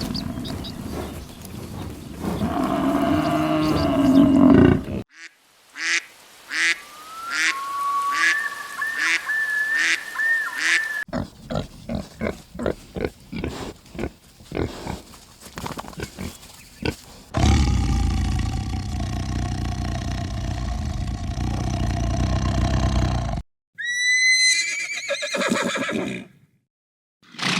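A run of different animal calls from short clips, one after another, with abrupt cuts between them.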